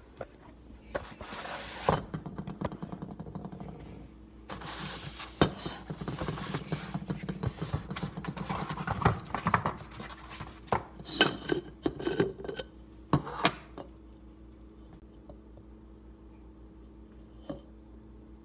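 Rustling and knocks of a phone camera being handled and set down, then scattered clicks and clatter of kitchen items being moved on a countertop, over a faint steady hum. The handling sounds thin out in the last few seconds.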